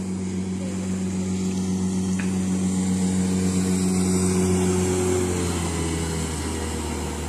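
A motorboat engine running as the boat passes: a steady hum that grows louder to about four or five seconds in, then drops a little in pitch and fades.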